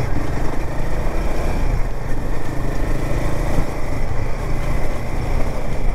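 Royal Enfield Himalayan 450's single-cylinder engine running steadily under way at city speed, heard from the rider's position mixed with wind and road noise.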